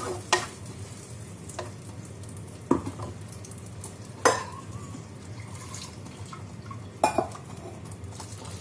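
A spoon stirring thick masala paste in a clay cooking pot, knocking against the pot's rim and sides about five times; the loudest knock comes about four seconds in. A faint frying sizzle runs underneath.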